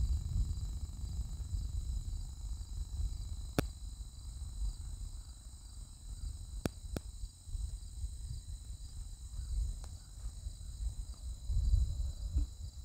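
Steady high-pitched trilling of an insect chorus in the fields, under a low rumble that swells near the start and near the end. A few sharp clicks come about a third of the way in and again about halfway through.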